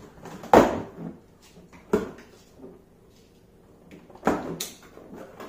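Plastic golf discs and a cardboard box being handled during unpacking: a few sharp knocks and scrapes, the loudest about half a second in, another near two seconds, and a pair a little after four seconds.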